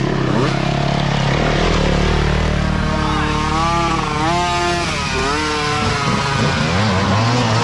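Small two-stroke mini dirt bike engines revving under load on a steep, muddy climb. One engine's pitch rises and falls several times in the middle, as the throttle is blipped up and down.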